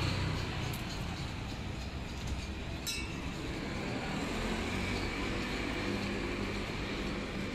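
Tram running on its rails: a steady low rumble with a faint hum and a single sharp click about three seconds in.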